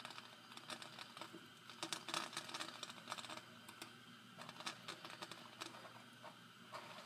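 Faint, irregular small clicks and ticks from hands working a lighter against a wax crayon while its paper wrapper is set alight.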